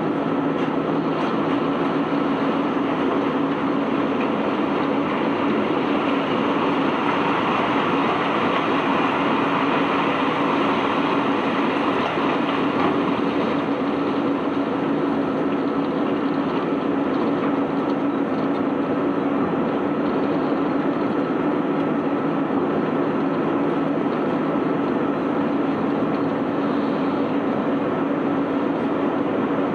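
Cargo-unloading machinery running steadily as cobblestones are unloaded from a barge: a constant hum under an even rushing noise, without separate knocks.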